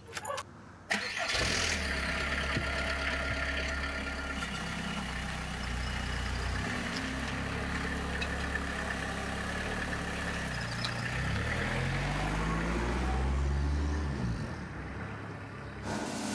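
Small delivery van's engine running as it drives off, starting abruptly about a second in; its pitch rises and falls several times near the end as it speeds up, then it drops away.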